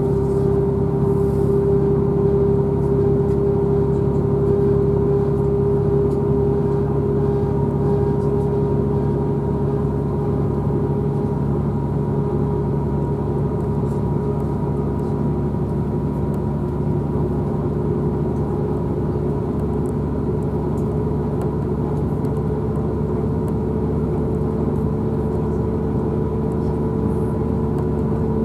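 Cabin noise inside a British Rail Class 180 diesel multiple unit running at speed: the steady drone of its underfloor diesel engines and transmission over the rumble of wheels on rail, with a humming tone that climbs slightly near the end.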